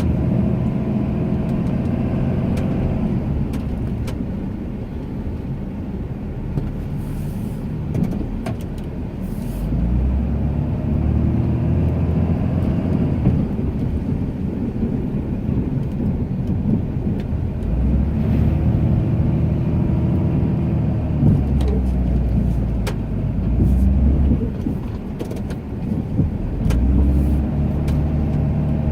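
Ram 2500 pickup's engine working while plowing snow, its pitch rising and falling in repeated waves a few seconds apart as the truck pushes and backs off, with scattered light clicks.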